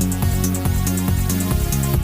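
Background electronic dance music with a steady beat and a repeating bass line.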